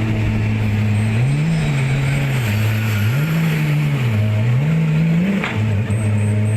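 An engine revving up and down over and over, its pitch rising and falling about every second and a half, then settling to a steady run after a short click near the end.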